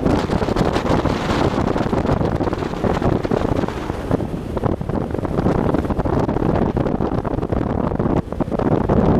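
Wind buffeting the camera's microphone in gusts, a heavy rumbling rush.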